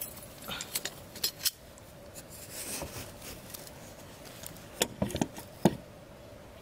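Metal hand pliers clicking and snipping as they work a thin line on a wooden box trap. There is a cluster of sharp clicks about half a second in and another quicker run about five seconds in.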